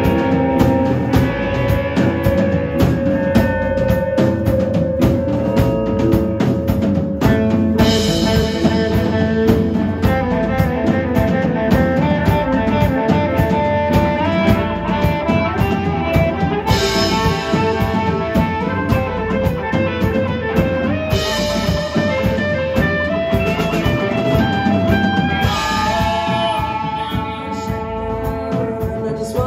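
Live rock band playing an instrumental passage: electric guitars over a drum kit keeping a steady beat.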